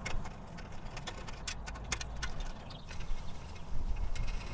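A socket wrench on an extension clicking and clinking as M8 bolts are run in loosely through a skid plate into the frame cross member, in irregular sharp clicks.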